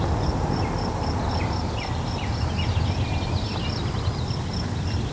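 Field recording of a distant car driving on a gravel road: a steady low rumble and hiss, with an insect chirping in an even pulse a few times a second and short bird chirps over it.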